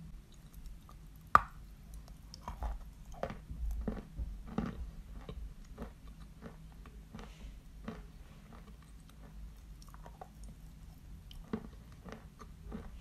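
A bite into a lump of "Badger" chalk, one sharp crack about a second in, then close-up crunching and chewing of the chalk, thinning out to softer, scattered chewing sounds.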